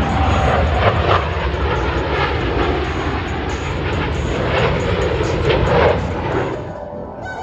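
Jet engine noise from a Blue Angels F/A-18 Super Hornet flying over, loud and dying away near the end.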